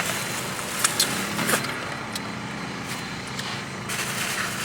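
Steady background rumble with a few light clicks and taps in the first second and a half.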